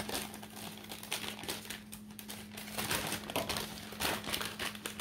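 Paper wrapping on a bar of soap crinkling and rustling as it is handled, in quick irregular crackles, with a steady low hum underneath.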